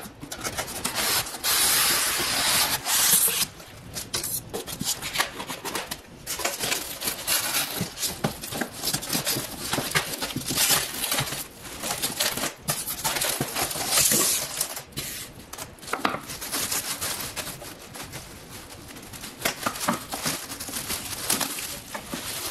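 Cardboard box flaps and plastic packaging rustling and crinkling as a light fixture is unpacked by hand, in uneven bursts, loudest about two to three seconds in.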